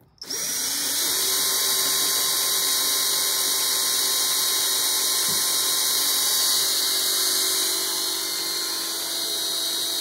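DeWalt cordless drill spinning a diamond-tipped bit into a porcelain teacup, starting up just after the beginning and then running at a steady pitch: a constant whine over a high hiss.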